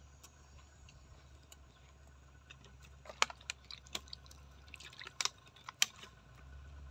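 Wet clicks and smacks of a mouth chewing food, faint at first, with several sharper clicks in the second half, over a low steady hum.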